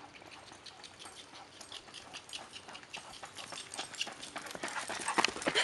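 A miniature horse's hooves trotting on a paved road with a person's running footsteps, a quick patter of hoofbeats and steps that grows louder as they approach and is loudest near the end.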